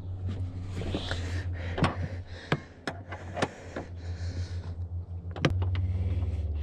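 A 14 mm wrench working the seatbelt's lower anchor bolt loose: scattered metal clicks and knocks, then a rapid run of even clicking from about five and a half seconds in, over a steady low hum.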